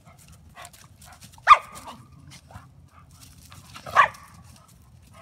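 A dog barking twice, two short loud barks: one about a second and a half in, the other near four seconds.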